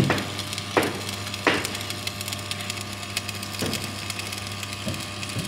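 Stick welding of steel rebar: the electric arc crackling and sizzling over a steady low hum, with two sharp knocks about a second and a second and a half in.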